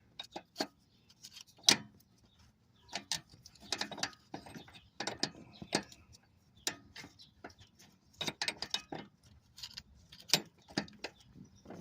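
Stubby 18 mm wrench clicking and clinking against a power steering line fitting as it is worked loose in short turns, a string of irregular sharp metal clicks.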